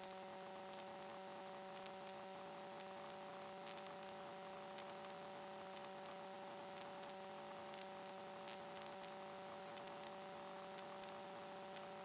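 Faint steady electrical hum and hiss on the aircraft's radio audio line between transmissions, with a few fixed tones and scattered light static clicks.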